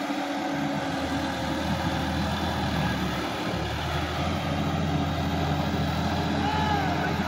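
Sonalika DI 50 RX tractor's diesel engine running steadily as it works through a flooded paddy field. Its low hum grows stronger about halfway through.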